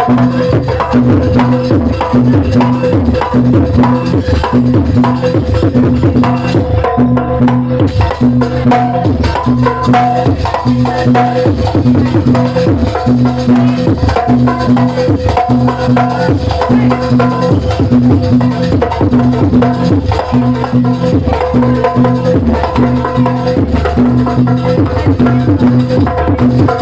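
Live jaranan accompaniment music: fast drum and clicking percussion strokes over a repeating pitched low note about once a second, with a steady higher tone held above.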